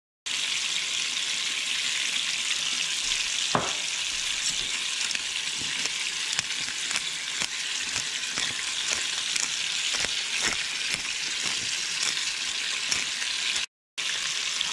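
Snapping-turtle tenderloins sizzling in hot oil in a frying pan: a steady frying hiss with small scattered pops and one sharper knock about three and a half seconds in. The sound drops out for a moment right at the start and again near the end.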